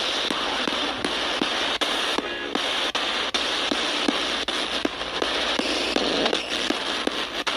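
P-SB7 spirit box sweeping through radio frequencies: a steady hiss of static chopped by regular clicks about three times a second, with a brief snatch of a station's tone about two seconds in.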